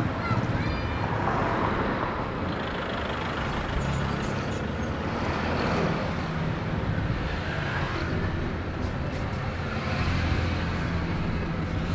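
Road traffic: the steady running of vehicle engines passing and idling on a street.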